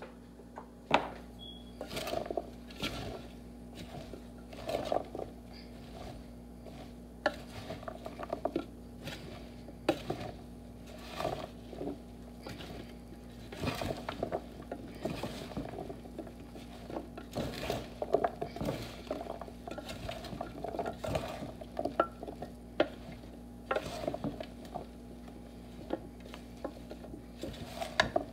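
Kitchen clatter from handling food in a speckled enamel roasting pan: irregular knocks, clicks and scrapes of vegetables and hands against the pan, over a steady low hum.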